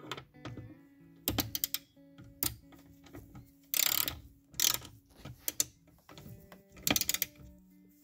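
Hand socket ratchet clicking in several short, uneven bursts as it tightens a seat belt anchor bolt, over background music.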